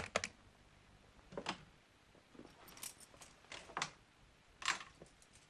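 Keys rattling and clicking in a door lock as it is unlocked: a handful of short, scattered clicks and jingles.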